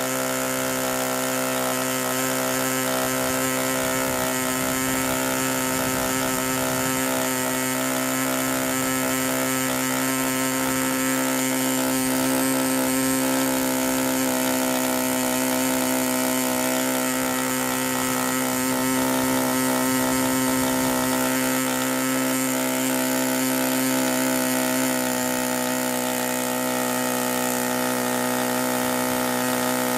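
MVVS 8cc (.49) two-stroke glow engine running steadily on a test stand, turning a 13-inch Zinger propeller through a homemade muffler. It is running rich in the four-stroking break that stunt engines are set to, at around 7,300 to 7,700 rpm.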